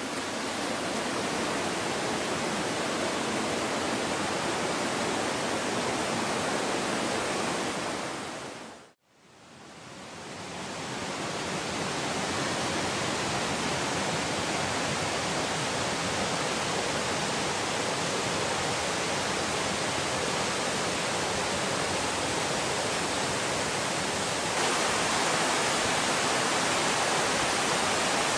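Steady rush of fast water from the mountain river in the gorge. About nine seconds in it fades out to a moment of silence and fades back in, and it gets slightly louder near the end.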